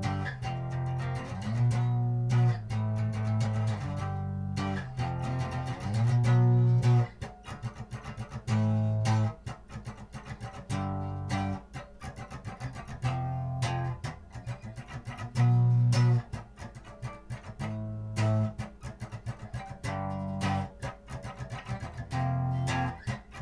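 Instrumental background music: quick plucked guitar notes over a repeating bass line.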